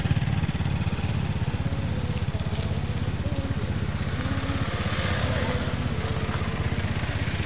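A vehicle engine running steadily, a fast, even throb with no change in speed.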